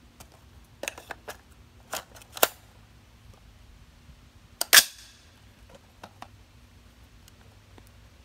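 Rifle handling clicks and clacks as a magazine is swapped in an AR-style 6.5 Creedmoor rifle. Just under five seconds in comes one loud metallic clack of the bolt carrier slamming forward to chamber a round.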